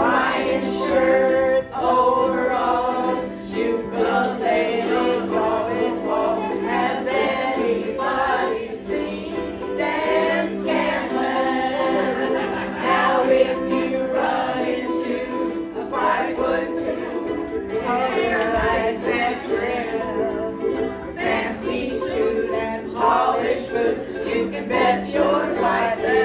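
A group singing a song together over strummed string instruments.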